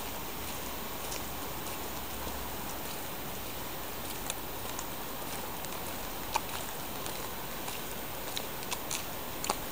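Steady rain falling on a street, with a few sharp raindrop taps close by, scattered irregularly.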